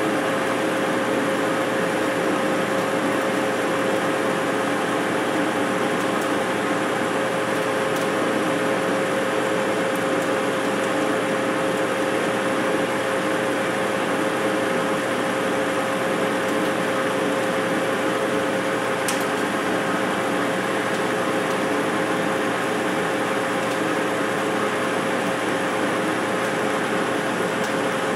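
Enco gear-head metal lathe running steadily while the tool takes a power-fed turning pass along a steel bar held between the chuck and the tailstock center. A steady drone with a single steady whine runs through it.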